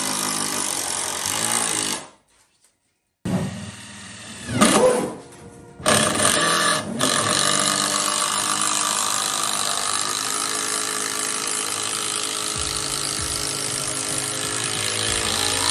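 Background music, broken by about a second of silence a little after two seconds in.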